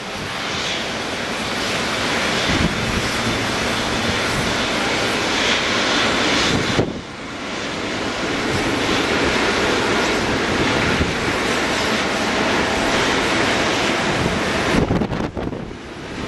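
Boeing 777-200LR's GE90 jet engines running at taxi power, a steady broad engine noise with two brief dips.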